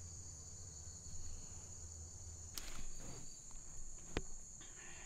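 Steady, high-pitched chirring of insects. A brief rustle comes about two and a half seconds in, and a single sharp click at about four seconds.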